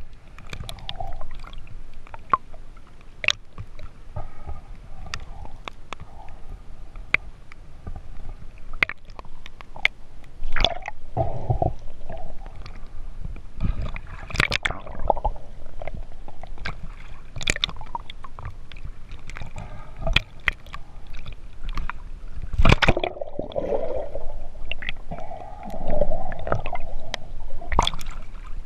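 Water sloshing and gurgling around a camera held at the surface, dipping in and out of the water, with scattered clicks and a few louder splashes.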